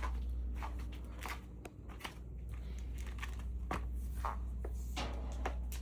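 Scattered clicks, taps and footsteps of someone handling an upright vacuum and its cord, over a steady low hum; the vacuum motor is not yet running.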